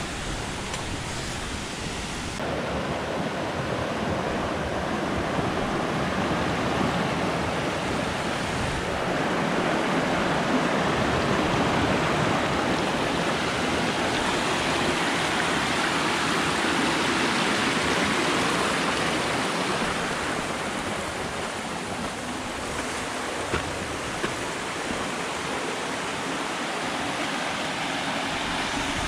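Water rushing over a small waterfall: a steady, even rushing noise that swells a little a few seconds in and eases off later.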